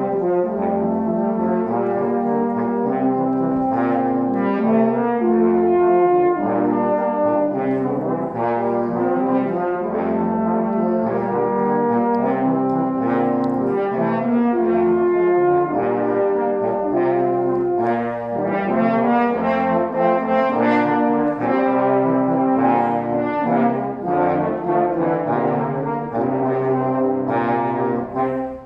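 Ensemble of French horns playing a piece together in harmony, several parts moving note by note.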